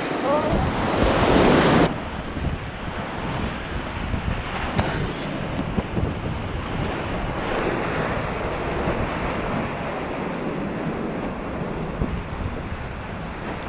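Rushing whitewater of a river rapid churning around a kayak, heard close up. The rush is louder for the first two seconds, then drops suddenly to a steadier, slightly quieter roar of water.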